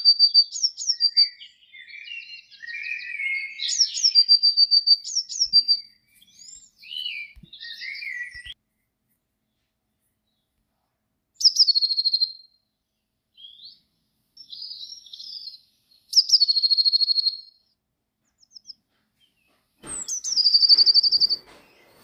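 Small songbirds singing: a repeated phrase of high notes that slide down into a short trill, coming every few seconds, with softer, lower chirps mixed in during the first few seconds and a quiet gap in the middle.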